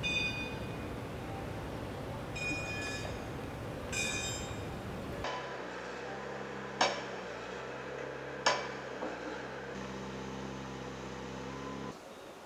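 A bird giving three short calls in the first five seconds, at the start, at about two and a half seconds and at about four seconds. After that, several steady low tones sound together, shifting about ten seconds in, with two sharp clicks about a second and a half apart.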